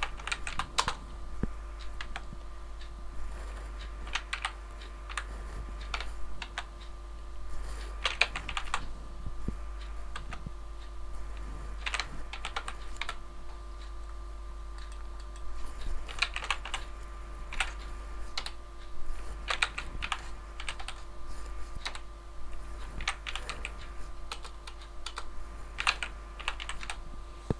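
Typing on a computer keyboard in short runs of key clicks with pauses between them, over a faint steady hum.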